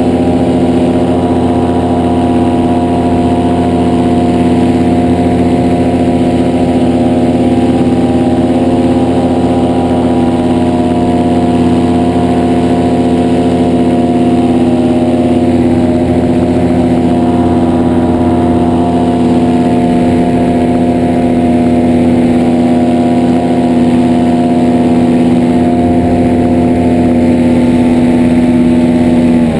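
Two-seat paramotor trike's engine and propeller running at a steady cruising throttle in flight: one even drone that holds its pitch throughout.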